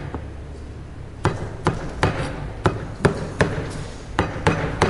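Knife chopping on a cutting board: about a dozen sharp knocks, unevenly spaced, starting about a second in.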